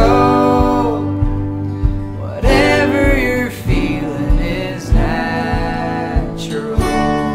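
A song with a singing voice over acoustic guitar and a steady low beat.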